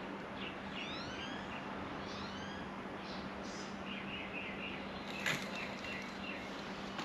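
Wild birds chirping and calling: short sweeping notes and quick runs of repeated chirps, over a steady low hum. A single sharp click a little after five seconds in.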